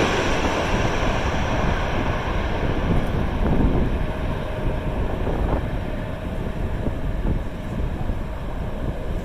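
The engine noise of a landing airliner fading away after it passes low overhead. Strong gusty wind buffets the microphone throughout.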